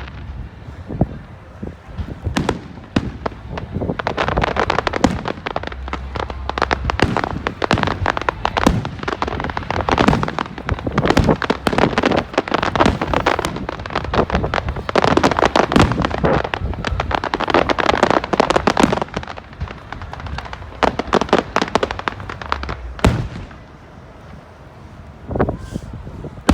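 Aerial fireworks going off in rapid succession, a dense crackle of many sharp bangs and pops over deep booms, thinning out in the last few seconds.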